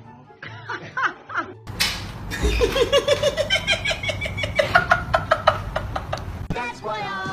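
A dog gives a few short yips in the first second or so. Then a person laughs hard in a long run of quick ha-ha-ha's. Music starts near the end.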